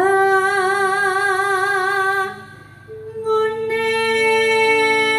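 Woman singing into a microphone, holding a long note with vibrato that fades about two seconds in; after a short dip, another long, steady held note begins about three seconds in.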